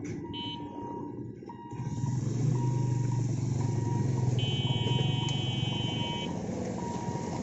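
Motorcycle and small vehicle engines pulling away over a railway level crossing as the barrier lifts, their engine drone swelling about two seconds in. A vehicle horn sounds briefly near the start and again for about two seconds in the middle, and a beeper sounds about once a second throughout.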